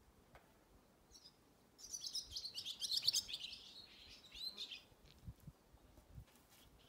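A songbird singing a quick run of high chirps and trills, starting about two seconds in and lasting about three seconds.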